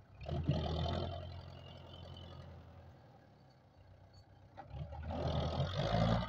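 Belarus tractor's diesel engine working under load while pulling a soil-laden trailer, revving hard twice: briefly about a second in, then longer toward the end, and running steadily between.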